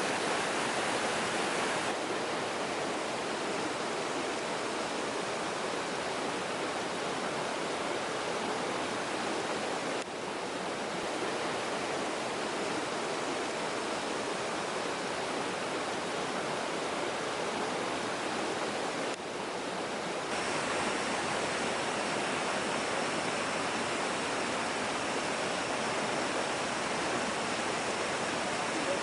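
Steady rush of a forest stream's flowing water, an even hiss that fills the whole sound.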